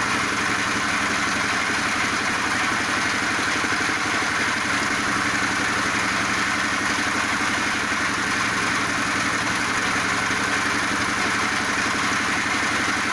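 Multifunction feed pellet machine running steadily, a constant engine-like drone with a fast even pulse.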